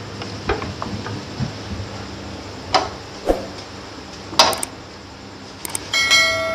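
Plastic spatula scraping and knocking against an iron tawa as a paratha is lifted and turned: a string of short clicks and taps. Near the end a short ringing chime sounds.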